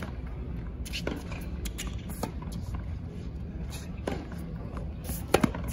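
Tennis rally on a hard court: a series of sharp pops from racquets striking the ball and the ball bouncing, about a second or two apart, with a louder close pair near the end, over a steady low background.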